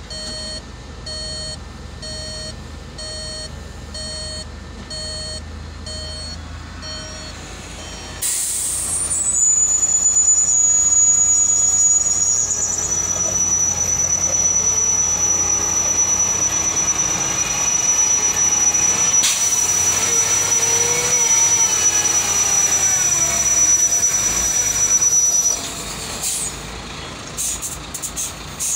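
A heavy dump truck's reversing alarm beeps evenly, a little over once a second. About eight seconds in, the truck's engine comes in much louder with a high, steady whistle over it. It cuts back near the end, where a few clicks remain.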